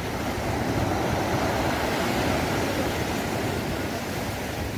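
Shallow sea surf washing in over wet sand, a steady rushing noise that swells about a second in and eases off toward the end.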